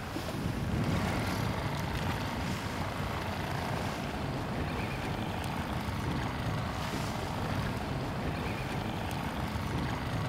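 Steady wind and choppy water around a small fishing boat on open water, with a low, even rumble underneath.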